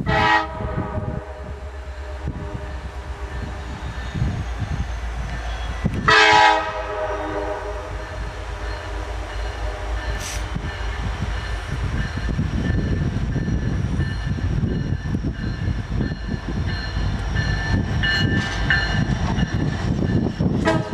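Two blasts on an Alaska Railroad diesel locomotive's air horn, one at the start and a second about six seconds later, each ringing on for a few seconds after it stops. The train's low rumble then grows steadily louder as it approaches.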